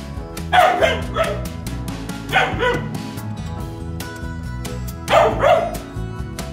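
Doberman pinscher puppy barking in three short bouts of two sharp barks each, over background music with a steady beat.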